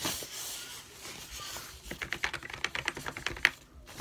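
Fingers pressing the keys of a new computer keyboard through its foam packing sheet: a soft rustle of the foam, then a quick run of clicking keys about two seconds in, stopping briefly just before the end.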